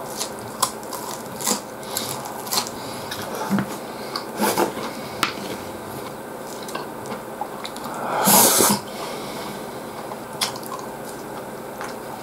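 Close-miked chewing and wet mouth sounds of a man eating katsudon, with scattered short clicks from chopsticks and food. About eight seconds in comes a brief, louder hiss.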